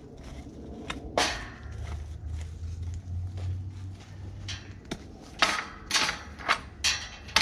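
Steel tube farm gate and its two-way spring latch clanking as the gate is swung shut and latched. One loud metal clang with ringing about a second in, then a quick run of sharp clacks near the end.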